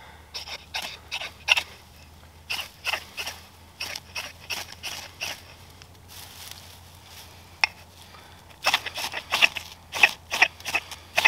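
Knife spine scraped hard down a thick ferrocerium (ferro) rod again and again to throw sparks into dry grass tinder. The short rasping strikes come in a quick run, pause for a couple of seconds in the middle, then come fast again near the end.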